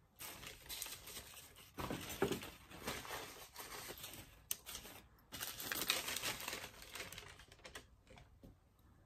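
Crinkling and rustling of something crinkly being handled by hand, in two stretches of about four and two and a half seconds, followed by a few light clicks.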